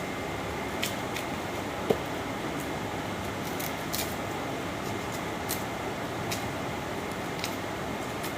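Onions being peeled and cut by hand with a knife: scattered light clicks and one sharper tick about two seconds in, over a steady background hum.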